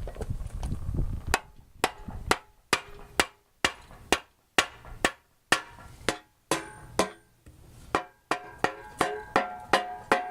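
Hammer tapping repeatedly on a Honda D16Y8 engine's oil pan to break its seal loose. The sharp strikes come about two a second and quicken near the end, with a metallic ring in the later strikes.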